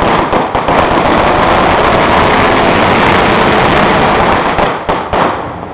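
A string of firecrackers going off in a dense, unbroken crackle, loud throughout, dying away about five seconds in.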